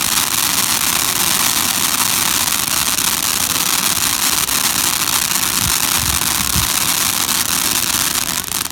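A consumer firework burning with a steady, loud hiss and crackle that dies away near the end.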